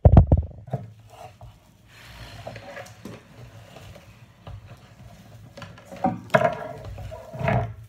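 A phone being handled and turned around: a sharp knock, then a few smaller knocks and rubbing as it is set down. After that a faint low hum, with two short, louder handling or movement noises near the end.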